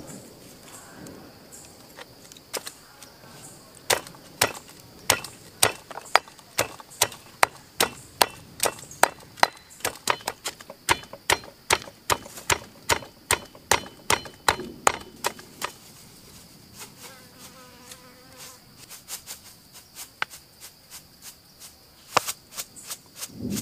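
Stone pestle pounding chillies and sliced root in a heavy stone mortar: sharp, rhythmic knocks at about two to three a second, lighter and quicker in the second half. A steady high insect buzz runs underneath.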